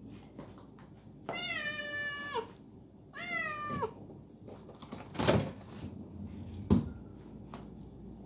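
Kitten meowing twice, a longer call then a shorter one, each dropping in pitch at the end. Then two loud thuds about a second and a half apart.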